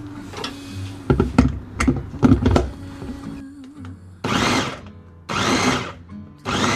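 Kitchen work sounds: a quick run of knocks, then three short noisy bursts about a second apart, over soft background music.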